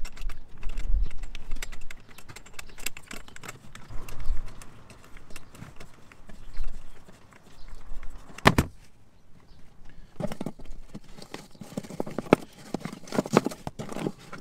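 Handling noise of irregular hollow knocks, clicks and rattles as a seat is lifted off its tubular metal frame and a ratchet strap over the battery box is worked loose. One sharp knock comes just past the middle, and the clicking grows busier near the end.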